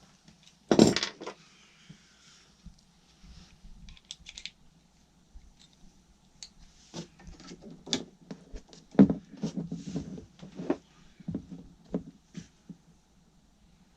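Irregular knocks and clicks from hands handling pipework and fittings: one loud knock about a second in, then a run of lighter clicks and taps later on.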